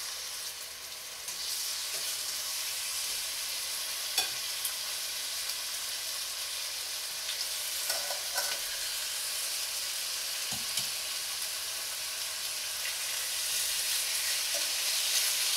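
Bone-in lamb shoulder pieces sizzling as they are seared in hot oil in a stainless steel pot over medium-high heat. The sizzle grows louder about a second in and again near the end as more meat goes in. A few light clicks of the metal tongs come in between.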